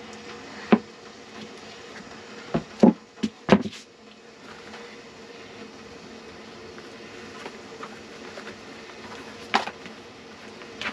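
A few sharp knocks and thuds as boots are handled on a plywood floor: several in the first four seconds and one more near the end. A steady buzzing hum runs underneath.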